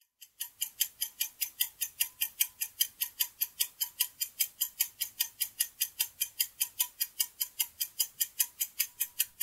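Ticking-clock sound effect for a quiz countdown timer: fast, even ticks about five times a second, marking the ten seconds left to answer.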